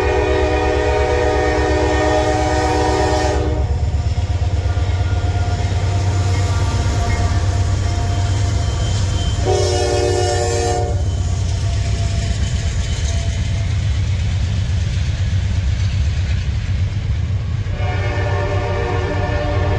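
Locomotive sounding its air horn three times: a long blast that ends a few seconds in, a short blast about ten seconds in, and another starting near the end. A steady low engine rumble runs underneath.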